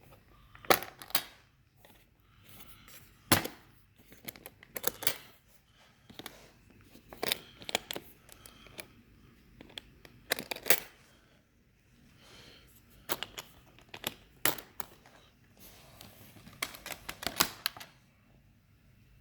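Irregular sharp clicks, clacks and knocks of hard objects being handled, with soft rustling between them: the work-light kit and its aluminum case being handled. The loudest knocks come about a second in and about three seconds in.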